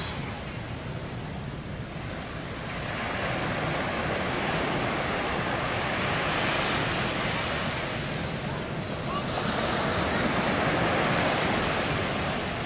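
Sea surf washing on the shore, with wind on the microphone. The rush swells a few seconds in and again past the middle.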